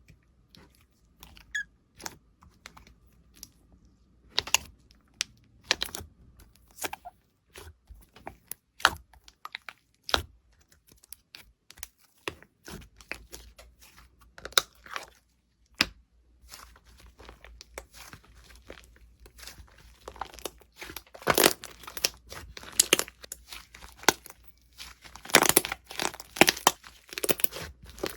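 Slime being squeezed and pressed by hand, with irregular crackling pops and clicks that come thicker and louder in two spells in the second half.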